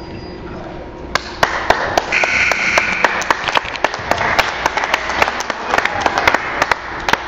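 Spectators clapping, a scattered irregular patter of hand claps that starts about a second in and continues, with some crowd noise underneath.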